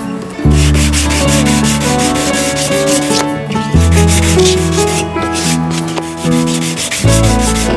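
Cardboard axle housing laminated with paper, rubbed back and forth by hand on a sheet of sandpaper: a rapid scratchy rasp. It sits over background music with held bass notes that change a few times.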